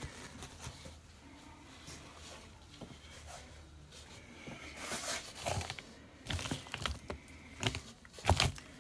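Transmission parts being handled: a quiet stretch, then a run of short knocks and scrapes over the last few seconds, the loudest near the end.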